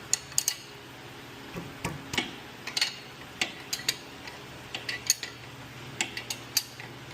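Metal hand tools clicking and clinking in short, irregular taps, one to three a second, over a faint steady low hum.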